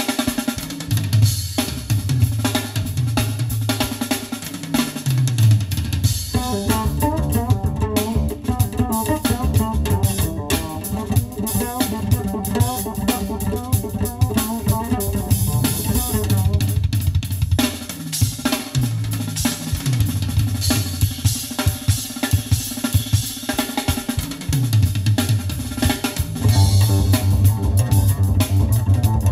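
Instrumental music with a busy drum kit (kick, snare and rimshots) over a strong bass line, played back through a custom car audio system inside the car's cabin; a busier melodic passage sits over the rhythm for about ten seconds in the first half.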